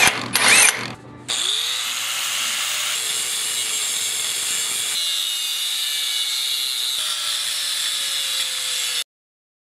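A cordless impact wrench briefly hammers a bolt tight. About a second in, a DeWalt angle grinder with a cut-off wheel spins up and cuts steel with a steady whine and hiss, stopping abruptly near the end.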